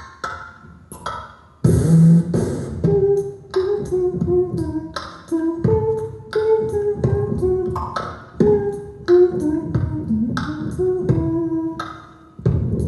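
Beatboxing: a rhythmic run of mouth-made drum hits with a hummed melody woven through them, done into a headset microphone.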